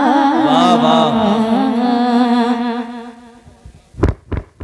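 A boy's voice singing the close of a naat, holding a long note with a wavering pitch that fades out about three seconds in. Near the end come two loud thumps in quick succession.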